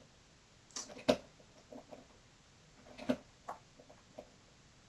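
Quiet room with about five short, soft clicks and taps, scattered through the pause.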